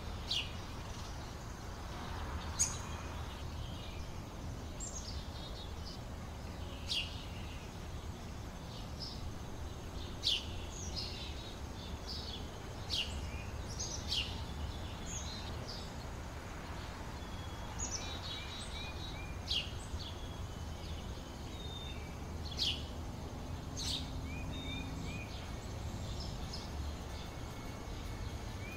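Small birds chirping: short, sharp calls that slide down in pitch, every second or two, some in quick little runs, over a steady low background rumble.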